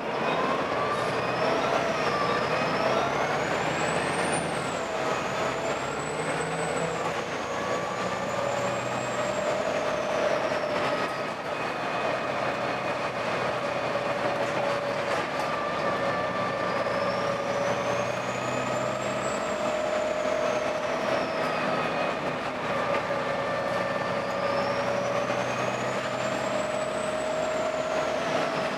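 Volvo B7TL double-decker bus's diesel engine running under way, with an odd high-pitched whine that rises and falls in slow sweeps several times over a steady lower drone.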